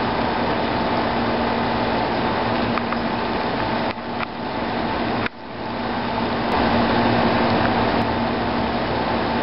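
Steady mechanical hum over an even hiss, holding a constant low drone and a higher tone, with two brief dips in level about four and five seconds in.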